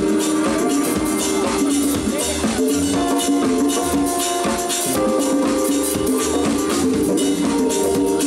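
Live band playing: a saxophone melody over congas and dense hand percussion.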